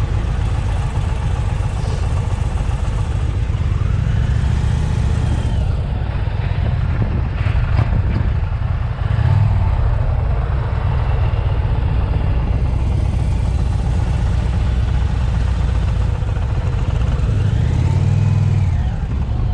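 Two V-twin touring motorcycles riding at road speed: a steady engine drone, with wind rushing over the microphone.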